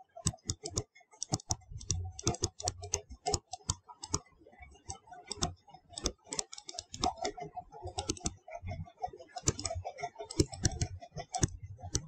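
Irregular tapping and clicking of a stylus on a touchscreen as words are handwritten, several quick taps a second with short gaps.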